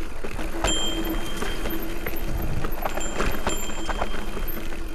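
Electric mountain bike rolling over a rough dirt trail: tyre noise with irregular clicks and knocks from the chain and frame rattling over bumps, under a thin steady whine.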